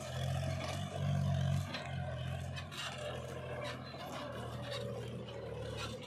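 Escorts Powertrac 434 DS Plus tractor's three-cylinder diesel engine pulling a loaded earth trailer uphill over rough ground: a steady low drone that dips briefly a few times, with short scrapes and knocks over it.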